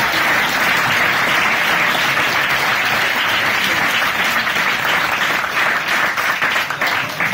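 Room of diners applauding at the close of a sung song; the dense clapping thins into separate claps near the end.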